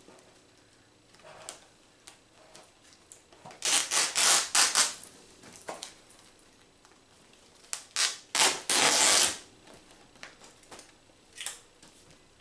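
Crinkly packaging rustle as a thin protective sleeve is peeled and pulled off a new tablet, in two loud bursts about four and eight seconds in, with faint handling clicks between.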